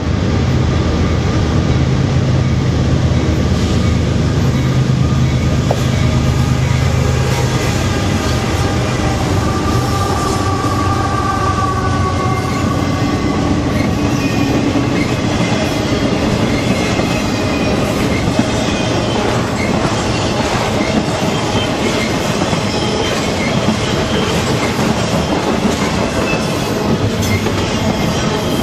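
A CSX freight train passes at close range. Its GE ES44DC and AC4400CW diesel locomotives run heavily as they go by, then a long string of intermodal container and trailer cars rolls past with steady wheel clatter. The wheels squeal in high, drawn-out tones through much of the passing.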